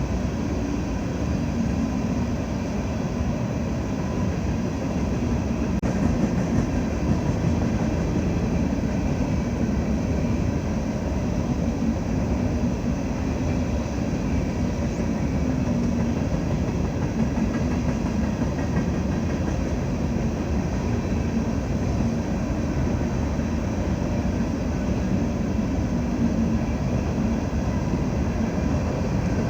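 Freight train running by with a steady rumble of diesel engines and wheels on the rails.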